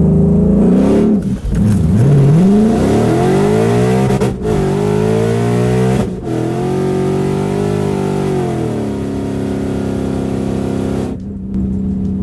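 Whipple-supercharged Ford Mustang GT 5.0 V8 at full throttle down a drag strip from a standing launch, revs climbing and dropping three times as it shifts up through the gears. The engine note levels out in top gear, and about eleven seconds in it falls away as the driver lifts off, which he puts down to a toasted clutch.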